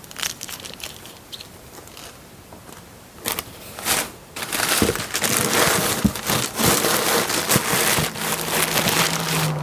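Packaging being handled and unwrapped: crinkling and rustling with many sharp crackles, starting a few seconds in and getting louder.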